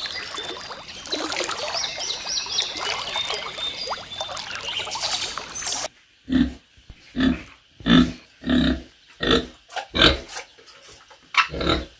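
Pig grunting in a steady series of short, low grunts, about one and a half a second, starting about halfway through. Before the grunts comes a dense, noisy stretch with high chirping calls.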